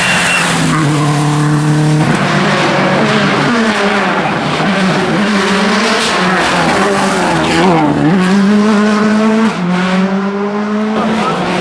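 Subaru Impreza WRC rally car's turbocharged flat-four engine running hard at high revs. The pitch holds level for a second or two, then jumps abruptly several times, and rises and falls repeatedly through the middle as the revs climb and drop.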